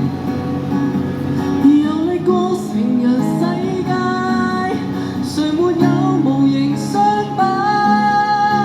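Live busking band playing an instrumental passage of a Cantopop song: strummed acoustic guitar chords under a sustained melodic lead line that glides between notes.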